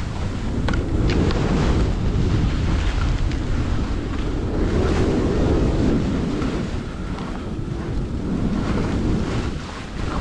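Wind buffeting the microphone of a downhill skier's camera, over the hiss and scrape of skis sliding and carving on packed snow, rising and falling through the run.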